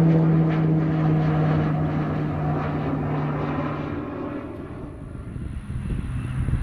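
Propeller airplane passing, its engine and propeller making a steady low drone that fades away over about four seconds as it moves off. A low rumble builds near the end.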